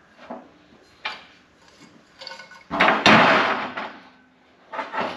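Handling noises of a metal coolant tube being worked on a stainless truck fender: a few light knocks and clinks, with a louder noise lasting about a second near the middle.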